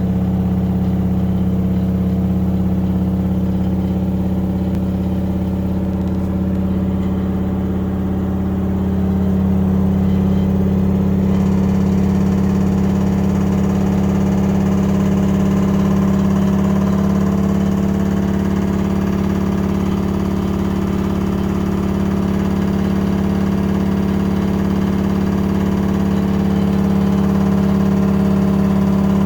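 LG washing machine in its spin cycle, the drum spinning with a loud, steady hum, one strong low tone with fainter ones above it; the tones shift slightly about ten seconds in.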